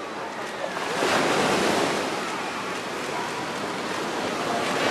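Ocean surf washing and breaking, swelling louder about a second in and again near the end.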